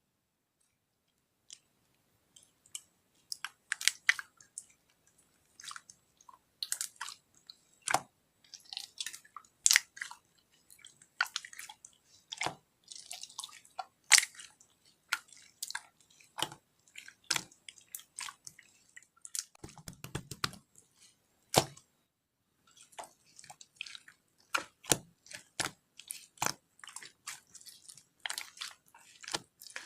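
Slime being squeezed and poked by hand, making irregular sticky clicks and small popping crackles.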